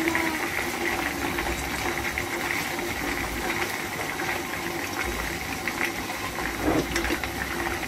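Chicken drumsticks shallow-frying in hot oil in a frying pan: a steady sizzle with fine crackling as the skin browns and crisps.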